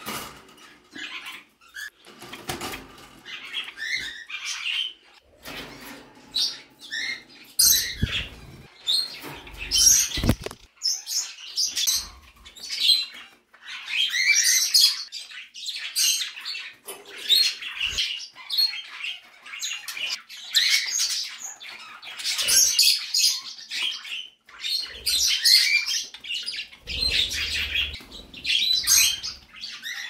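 A mixed flock of pet birds, cockatiels and budgies among them, chirping without pause in overlapping high calls. Wing flaps and low knocks come now and then, the loudest knock about ten seconds in.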